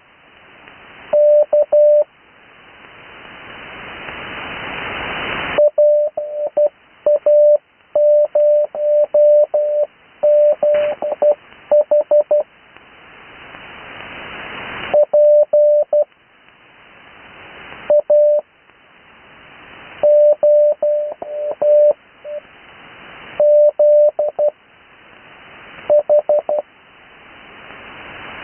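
Morse code (CW) sent on the 80 m amateur band: a single steady tone keyed in dots and dashes, spelling out call signs in groups of characters. In the longer gaps between groups, radio hiss swells up until the tone cuts back in.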